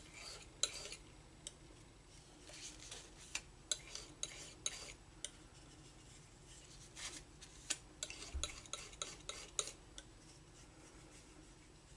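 Metal palette knife scraping and tapping on a palette as it scoops and spreads thick oil paint. Faint, short clusters of light scrapes and clicks with pauses between.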